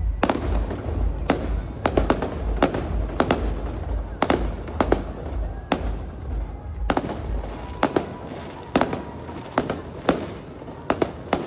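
Fireworks display: a rapid, uneven series of sharp bursts, about two a second, over a low rumble that fades away near the end.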